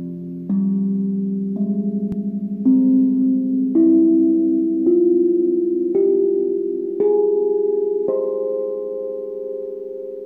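Helios Mini steel tongue drum in an Onoleo scale with a C3 root, struck with felt mallets: single notes about once a second that climb step by step up the scale, each ringing on with a gentle wavering and overlapping the next.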